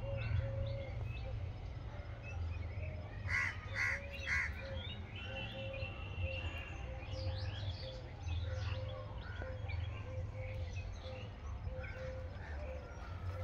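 Birds calling: three loud calls close together about three to four seconds in, scattered short chirps, and a low note repeating about twice a second, over a steady low rumble.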